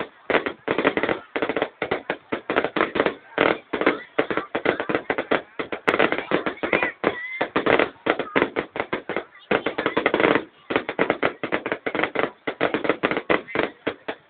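Fireworks going off in a rapid, near-continuous run of bangs and crackles, with only brief pauses.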